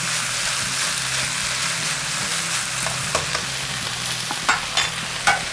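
Chicken and vegetables sizzling steadily as they stir-fry in a hot wok. A few short, sharp clicks and knocks come in the second half.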